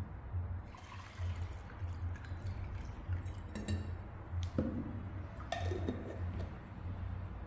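Liquid being handled while a drink is prepared: a few drips and a short pour, with light clinks of glass or a spoon. A low hum pulses about once a second underneath.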